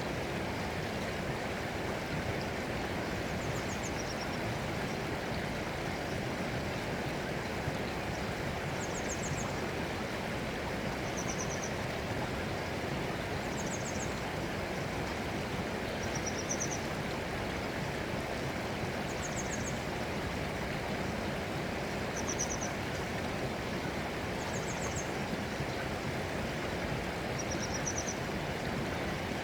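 Steady rush of flowing stream water, with short high chirps recurring every two or three seconds.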